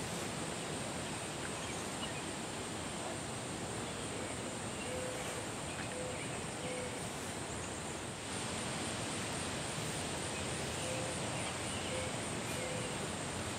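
Outdoor ambience: a steady even hiss with a continuous high-pitched insect drone. A few short, faint low tones come in a group around the middle and again near the end.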